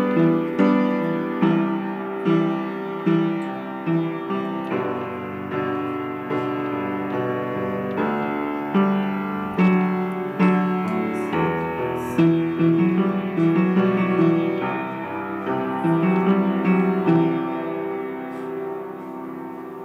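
Piano music with no voice: a slow instrumental passage, each note struck and left to ring, easing off in volume near the end.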